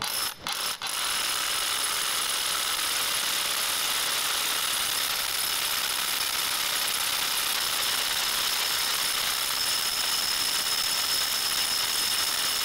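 Makita XGT 40V Max brushless cordless rotary hammer drilling into solid concrete with an SDS masonry bit, in hammer-drill mode. A few short stop-start bursts come first, then it runs steadily under load.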